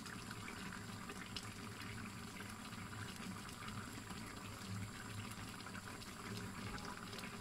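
Fish tagine simmering in its pot over a gas burner: a steady, soft bubbling hiss with faint small pops.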